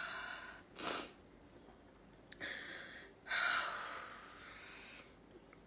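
A woman's breathing while she is crying: a short sniff about a second in, then two longer breaths, the second lasting nearly two seconds.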